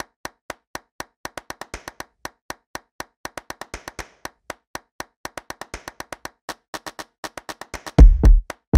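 Electronic music track: crisp clap-like clicks at about four a second, with deep bass kick drums dropping in near the end.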